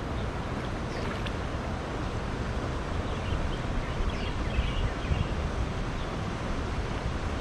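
Steady wind noise on the microphone, with water moving around a man wading in a river as he gathers a cast net.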